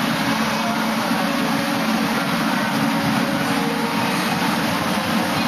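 Electric blower of an inflatable bounce house running with a steady, even rushing noise.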